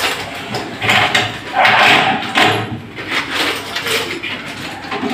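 Irregular clattering and scraping of aluminium cabinet frames and glass door panels being handled and fitted, loudest about a second or two in.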